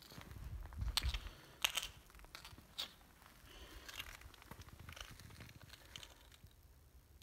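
Handling noise from a handheld camera being moved around: faint scattered crunches and clicks, with a low rumble in the first second and a few sharper clicks over the next three seconds.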